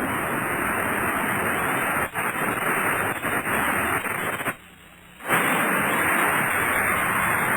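Rumbling of the South Tower of the World Trade Center collapsing, recorded as a dense, hiss-like noise that breaks off for under a second about four and a half seconds in and then resumes.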